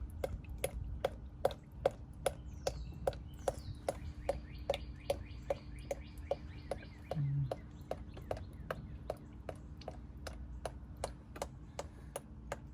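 Oil dripping steadily into a drain pan, a sharp plink about three times a second.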